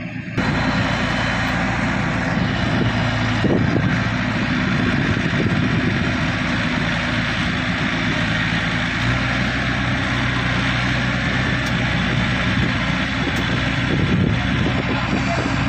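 Rice combine harvester running steadily at work: a constant engine drone under a dense mechanical rush from its cutting and threshing gear. It cuts in abruptly right at the start.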